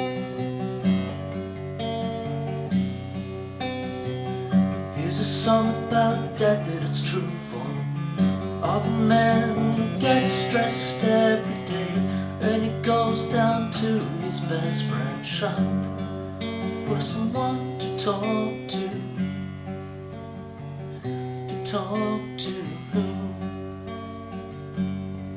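A man singing to his own steel-string acoustic guitar, which is strummed and picked throughout. For the first few seconds the guitar plays alone, then the voice comes in, in phrases with short guitar-only gaps between them.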